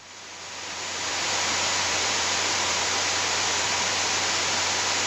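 Steady hiss of static on the aircraft's radio audio, rising over about the first second and then holding even, with a faint low hum beneath.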